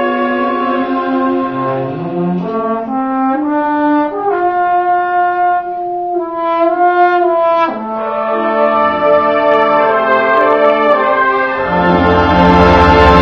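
Concert wind band playing a film-music medley: sustained chords with the brass to the fore, moving through held notes, then the full band comes in louder with low brass near the end.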